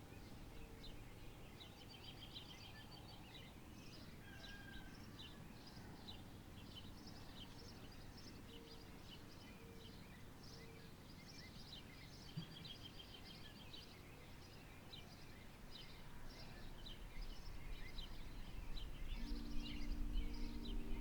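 Small birds chirping and singing in many short, high calls over a faint outdoor background rumble. Near the end the rumble grows louder and a steady low hum comes in.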